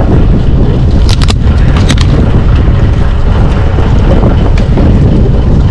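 Small fishing trawler under way: its engine runs beneath heavy wind buffeting on the microphone, a loud, steady low rumble. A few sharp clicks come about one to two seconds in.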